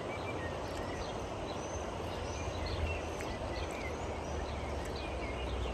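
Steady outdoor background noise with a low rumble, and a few faint, scattered bird chirps.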